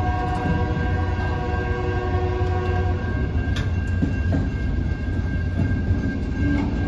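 Slow-moving freight train of autorack cars rolling past, a steady rumble of wheels on rail with several steady whining tones over it that fade out for a few seconds midway.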